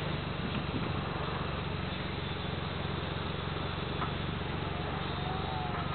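Suzuki Jimny's engine running steadily at low revs.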